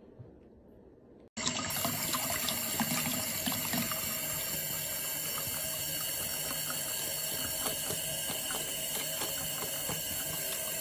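Steady running water, like a tap running into a sink, starting suddenly about a second in.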